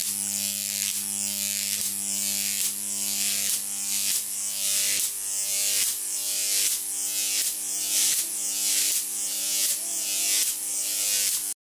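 High-voltage arc of a Jacob's ladder, fed by a 10 kV, 23 mA transformer, buzzing with a steady mains hum under a loud hiss. The hiss swells and restarts about every 0.7 s as the arc climbs the rods, breaks and re-strikes at the bottom. It cuts off suddenly just before the end.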